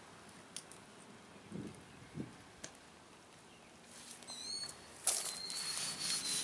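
Cloth rustling and rubbing from about five seconds in, as oil is wiped onto a black walnut tool handle, after a few faint handling clicks. High whistled bird notes sound in the background.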